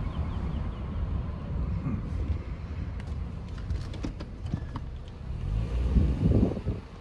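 Wind buffeting the microphone in a low, uneven rumble, with a few faint ticks in the middle and a stronger gust near the end.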